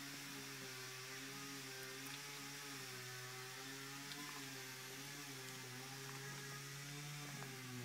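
A faint, steady low hum that wavers slightly in pitch.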